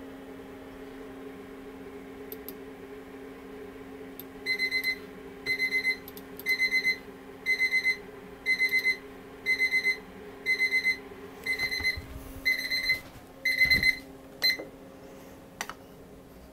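Darkroom timer alarm beeping: groups of about four quick, high beeps roughly once a second for some ten seconds, then it stops; it signals that a timed processing step is up. A steady low hum runs underneath.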